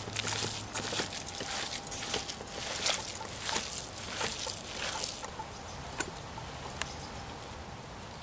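Raw pork-and-beef mince with herbs and rice being kneaded by hand in an enamel pot: wet squishing in rapid repeated strokes, growing quieter about five seconds in.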